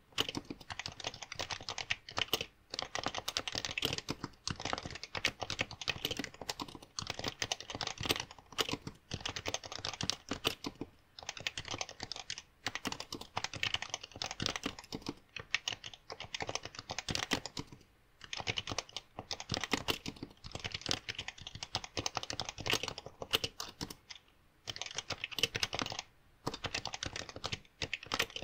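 Fast, continuous typing on a Happy Hacking Keyboard (HHKB), a rapid run of key clacks broken by a few brief pauses. It is picked up by a smartphone headset microphone.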